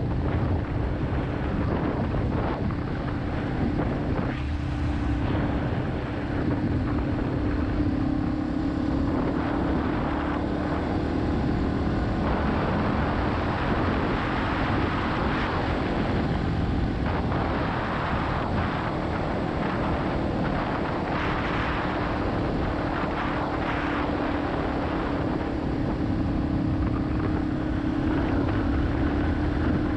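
Yamaha XT250's air-cooled single-cylinder engine running at a steady cruising speed, its pitch drifting only slightly, with wind noise on the microphone.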